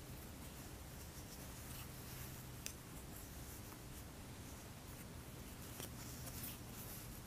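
Wooden knitting needles working thick wool yarn while purling: faint soft scratching and rubbing of yarn over the needles, with one light click of the needles about two and a half seconds in, over a faint steady hum.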